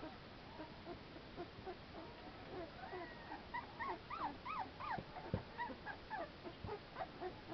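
A litter of young American Pit Bull Terrier puppies whimpering and yipping: many short, high squeaky calls that rise and fall, coming thickest in the middle. Two low thumps fall in the second half, the first being the loudest sound.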